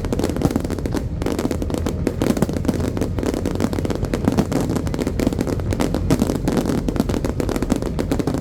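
Fireworks going off in rapid, overlapping succession: a dense, continuous run of booms and crackling reports with no break.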